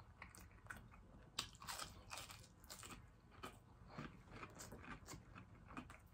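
Faint, close-up chewing of crispy battered fried butterfly shrimp: a run of short, irregular crunches as the breading is bitten and chewed.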